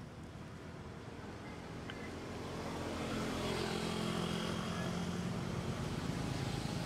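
A motor vehicle's engine running, growing louder over the first three seconds and then holding steady.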